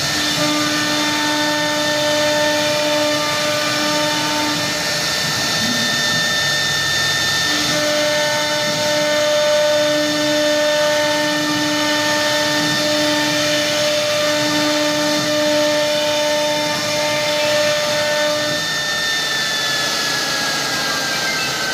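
Three-spindle CNC router cutting a board, its spindle giving a steady high whine over noise. A lower hum switches on and off several times, and near the end the high whine drops in pitch.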